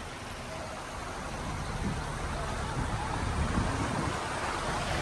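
Steady background noise of vehicles at a crowded stop, slowly getting a little louder.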